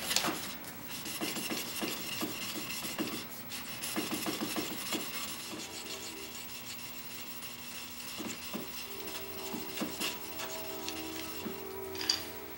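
Steel chisel in a sharpening jig rubbed back and forth on a fine diamond sharpening stone: a continuous metallic rasp of repeated honing strokes, refining the bevel at the higher grit. A single sharp click near the end.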